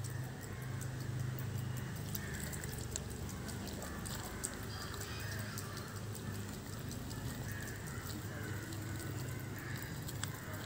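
A hand mixing thick gram-flour batter in a steel bowl: wet, irregular squelches and small clicks, over a low steady hum.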